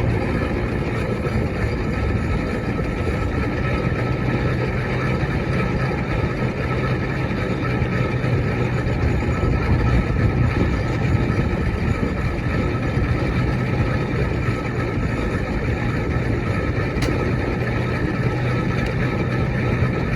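Steam engine running steadily under load while ploughing, a continuous mechanical noise with a steady low hum.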